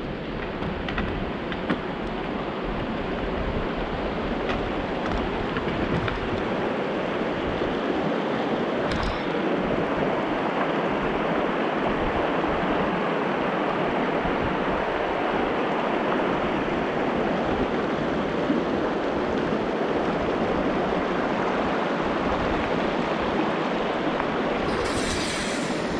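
Mountain river in spring runoff, rushing steadily.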